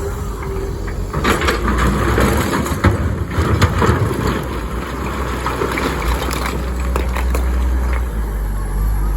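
Komatsu excavator's diesel engine running steadily under load. From about a second in to about four and a half seconds, rock clatters, crunches and scrapes as it is handled by the excavator bucket.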